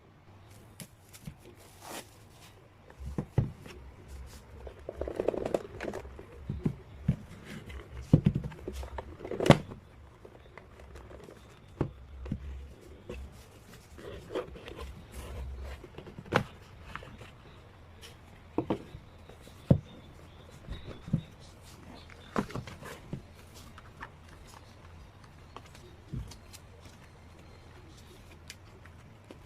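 Hands handling packaged CD albums and their contents: scattered taps, clicks and knocks of card and plastic, with brief rustling and a few soft thumps.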